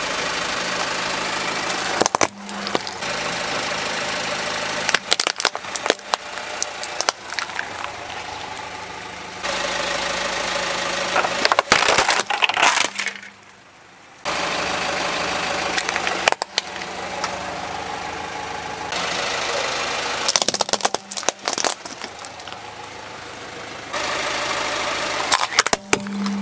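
Plastic toys and objects being crushed under a slowly rolling car tyre: clusters of sharp plastic cracks and snaps over the steady hum of the idling car. The background changes abruptly several times between short clips.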